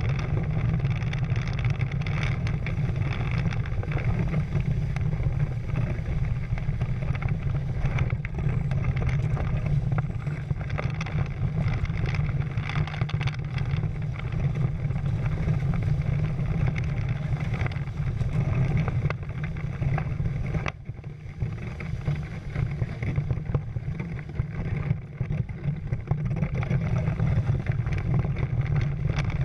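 Wind rumbling on the microphone and water rushing past the hulls of a Prindle 16 catamaran under sail, a steady heavy rush that eases for a few seconds about two-thirds of the way through.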